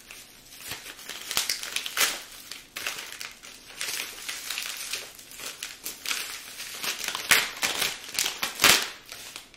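Holographic plastic pen packaging crinkling and crackling as it is handled, in irregular crackles. The loudest two come near the end.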